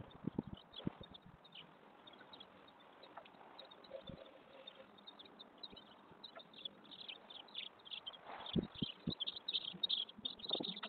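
Birds chirping, heard through a security camera's microphone: many short high chirps that grow busier toward the end, with a few low knocks near the start and again past the middle.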